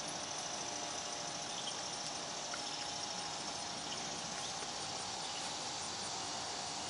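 Steady outdoor background ambience: an even hiss with a faint, steady high-pitched hum running under it and no distinct events.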